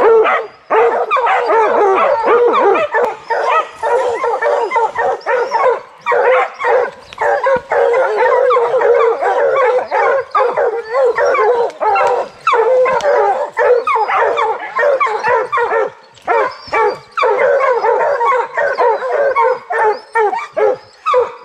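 A pack of bear hounds barking and baying without let-up at a treed bear, many voices overlapping.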